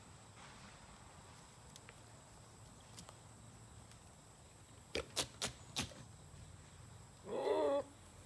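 Four sharp clicks in quick succession, then one short, wavering farm-animal call near the end.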